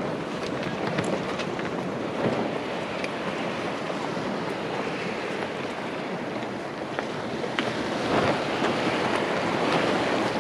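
Water rushing and splashing along a Gulfstar 40 sailboat's hull as it rides a strong outgoing current across a bar, with wind noise on the microphone.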